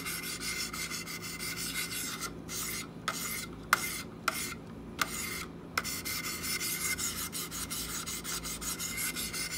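Wicked Edge 800-grit diamond sharpening stones stroked back and forth along a knife's edge: a steady, rapid rasping scrape. It is broken by a few short pauses and sharp clicks a few seconds in.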